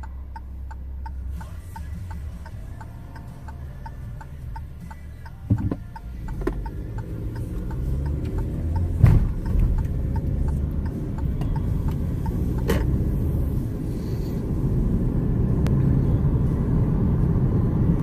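Car cabin noise: low engine and road rumble that builds as the car picks up speed, with an even ticking during the first few seconds and a few sharp knocks along the way.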